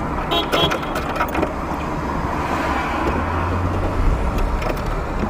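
Steady car and street-traffic noise heard from inside a stopped car, with a few faint knocks. A deeper low engine rumble comes in about three seconds in and grows stronger near the end.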